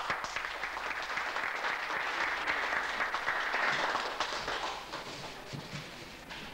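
Audience applauding, the clapping dying away after about four and a half seconds.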